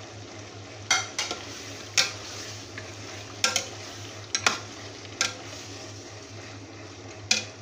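A metal ladle stirring beef masala in a large metal pot, knocking and scraping against the pot about seven times over a steady sizzle. The beef is being fried (bhuna) in its masala.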